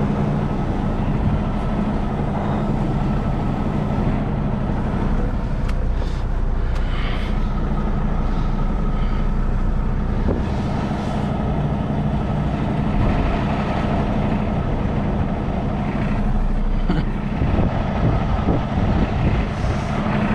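Kenworth T680 semi truck's diesel engine running steadily at low speed, heard from inside the cab while maneuvering slowly, with a few light knocks near the end.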